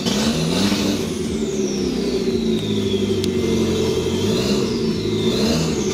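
Audi TT 1.8-litre turbo four-cylinder engine idling at about 1,100 rpm moments after firing up from a flooded, no-start condition, its idle wavering slightly. A faint high whistle slides down in pitch twice.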